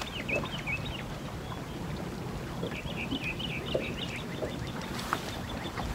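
Birds chirping in quick strings of short, curling high notes, near the start and again about halfway, over a steady low rumble of wind and water around a small boat.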